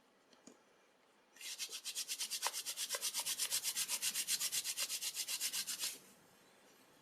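Palms rubbing briskly back and forth, rolling a small rubber tube between the hands to warm it and soften it before it is pushed onto a shim handle. It is a fast, even rubbing at about nine strokes a second, lasting around four and a half seconds and stopping abruptly.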